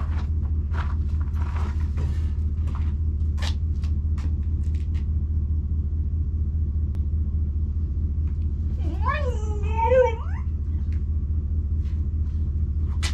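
Chevy truck's engine idling with a steady low rumble. About nine seconds in, a single drawn-out wavering cry rises and falls for about a second and a half.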